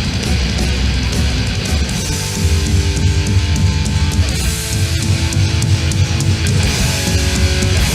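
Thrash metal band playing live: heavy distorted guitars, bass and drums, with a single-note guitar melody coming in about two seconds in.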